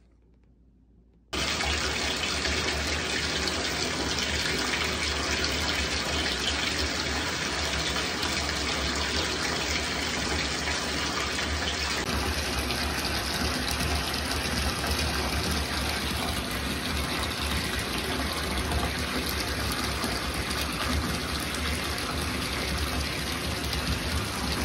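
Bathtub faucet running, water pouring from the spout into the tub in a steady stream. The sound starts suddenly about a second in.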